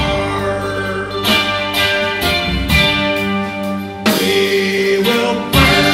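A live band, with guitar, bass guitar and drum kit, playing an instrumental passage between sung lines. Sustained guitar notes run over the bass line and the drum hits.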